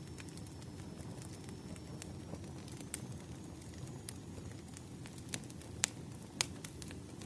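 Firewood burning: a steady low rumble with scattered crackling pops, a few sharper pops in the second half.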